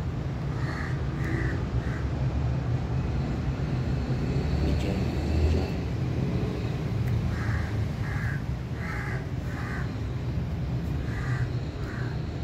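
Short animal calls in runs of three to five, about two a second, over a steady low rumble.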